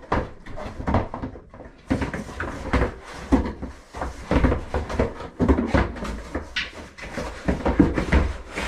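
Irregular knocks, taps and rubbing from handling a carbon bicycle wheel and working its popped-off hub end cap back onto the axle.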